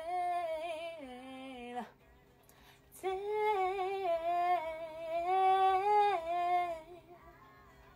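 A woman singing two phrases of held, gliding notes with a slight waver: a short one, then after about a second's pause a longer one of nearly four seconds.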